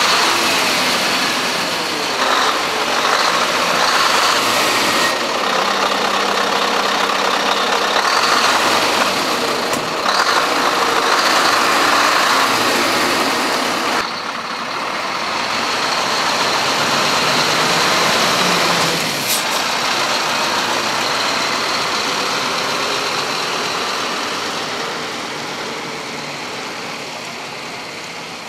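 Scania R560 truck's 16-litre V8 diesel running close by: a loud, steady engine sound with a lot of hiss. Over the last several seconds the truck and its trailer move off and the sound slowly fades.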